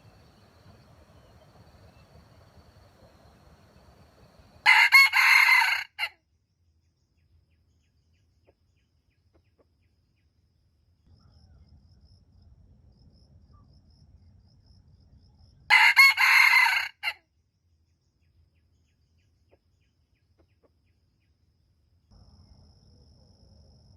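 Junglefowl rooster crowing twice, each crow short, about a second and a half long, some eleven seconds apart.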